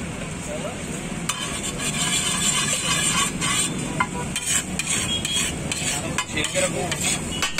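Egg tikhari frying and sizzling in a hot pan while a metal spatula stirs and scrapes it. From about a second in, the sizzle grows louder, with many sharp clicks of the spatula against the pan.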